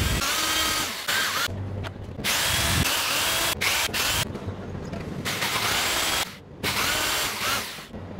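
Electric drill boring holes into melamine-faced chipboard, in about four runs of a second or two each, the motor whine rising as it spins up.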